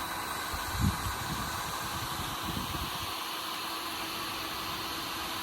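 A machine running steadily with a constant whirring hum and a steady tone, with a brief low bump about a second in.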